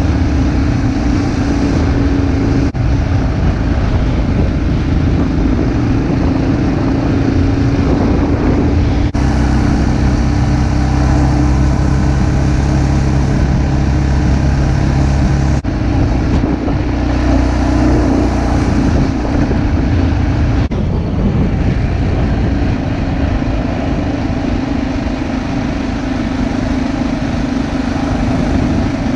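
A vehicle engine running steadily under way, with tyre and road noise. Its low drone holds a steady pitch, then shifts abruptly a few times.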